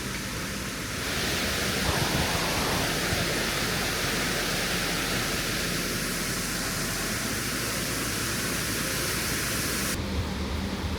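Water rushing and churning through an opened canal lock gate in a steady, loud roar that grows louder about a second in.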